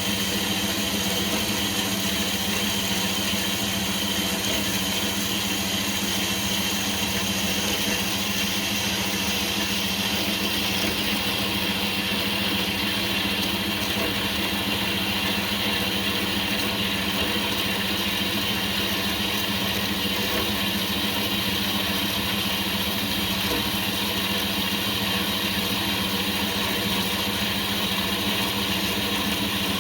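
Bandsaw running steadily, cutting through a piece of metal stock.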